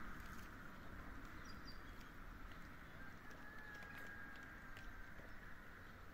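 Faint outdoor ambience: a steady hiss with a few short, high bird chirps about a second and a half in, and a thin whistled tone held for about two seconds near the middle.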